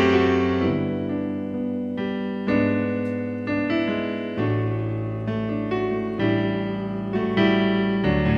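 Piano playing a slow introduction to a song, a chord struck about once a second, each ringing and fading before the next.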